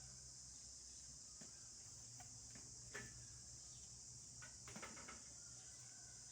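Near silence: a faint steady high hiss, with a few light clicks and taps about three seconds in and again around five seconds in.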